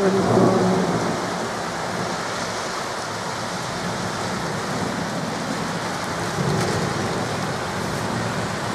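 Heavy rain pouring down steadily, a dense, even hiss of a summer downpour.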